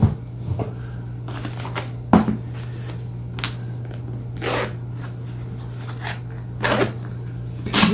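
Handling noise from a fabric drone shoulder bag being turned over and worked at on a wooden table: a handful of separate rustles and soft knocks, the loudest near the end. A steady low hum runs underneath.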